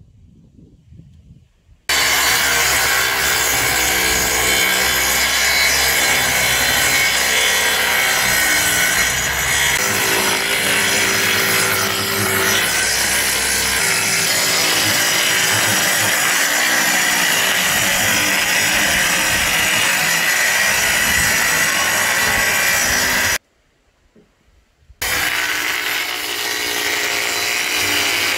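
Electric power saw cutting through an OSB board, running steadily under load. It starts about two seconds in, stops briefly near the end, then starts cutting again.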